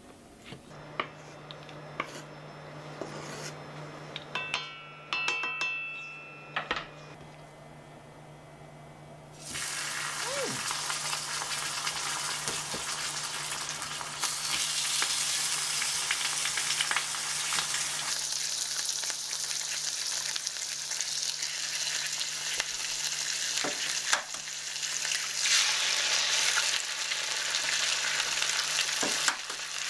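Thick bacon slices sizzling in a hot black iron skillet. The sizzle starts suddenly about a third of the way in and gets louder again as more slices go into the pan. Before it, a knife cutting bacon on a wooden board gives a few light knocks, along with a brief metallic ring.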